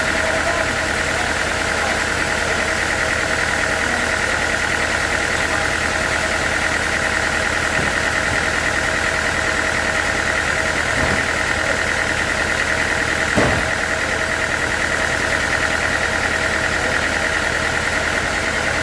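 Sawmill machinery running steadily in a continuous mechanical drone, with one short knock about 13 seconds in.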